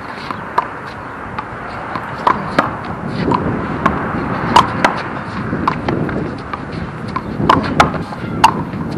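A handball is struck by hand and rebounds off the handball wall and court during a one-wall handball rally. The sound is a string of sharp, irregular smacks and pops, with the loudest hits about halfway through and near the end.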